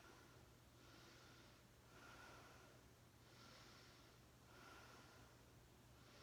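Near silence: faint room tone with a soft hiss that swells and fades about once a second over a low steady hum.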